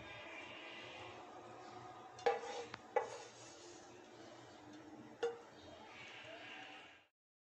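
A serving spoon clinks sharply against a ceramic bowl three times, two close together and one about two seconds later, as cooked jute leaves are spooned in, over a low steady background noise.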